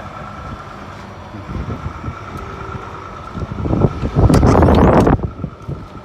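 Car engine running, with wind buffeting the microphone; a loud gust of wind noise about four seconds in lasts about a second.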